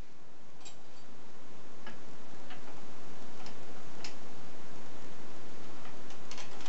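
A few light, irregular metallic clicks of a steel lathe carriage-lock clamp being handled and fitted against the lathe bed way, over a steady background hiss.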